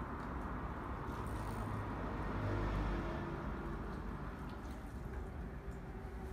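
Fingers scrubbing a shampoo-lathered scalp: steady soft rubbing and squishing of foam, over a low background rumble.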